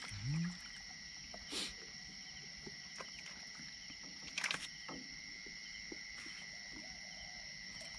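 Steady, high night-insect chorus holding two even pitches. A short low rising call sounds near the start, and two brief sharp knocks or splashes come about a second and a half in and again about four and a half seconds in, as the fishing line is worked at the boat's side.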